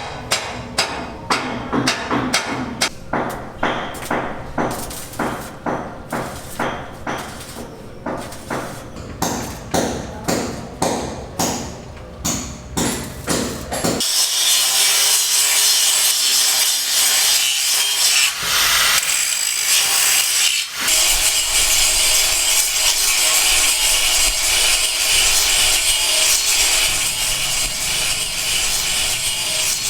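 Building-work tool noise: repeated sharp strokes on wood, about two a second, for roughly the first half. About halfway through, a loud, steady, hissing power-tool noise takes over, like sanding or cutting.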